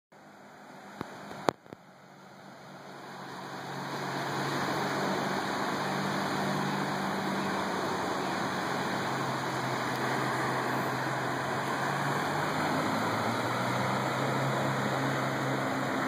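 Steady rush of a flood-swollen creek running high, loud enough to drown out its waterfall. The rush swells over the first few seconds and then holds even, after a few sharp clicks about a second and a half in.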